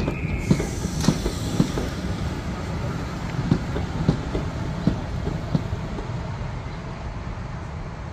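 Railway passenger coaches rolling slowly past, their wheels clicking irregularly over rail joints above a low rumble, growing fainter toward the end.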